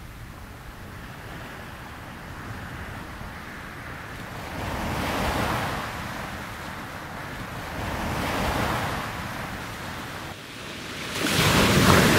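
Surf-like rushing noise that swells and fades three times, a few seconds apart, the last swell the loudest.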